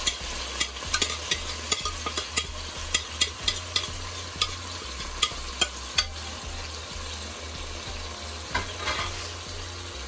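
Canned mackerel in tomato sauce sizzling in hot oil with softened peppers, onion and tomato in a steel pot, with sharp crackling pops several times a second that thin out after about six seconds.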